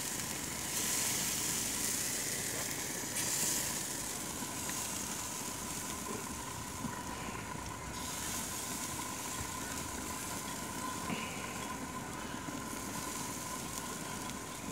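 Steaks sizzling on the grates of a lit gas grill: a steady hiss, with a faint steady high tone underneath.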